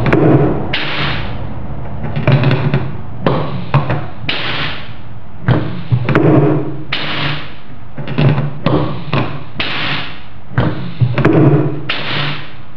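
HSD electrospindle's pneumatic tool-release cylinder cycled repeatedly from a hand valve: short blasts of compressed air hissing in and venting, each with a low clunk from the release piston and drawbar, about one or two a second over a steady background hiss.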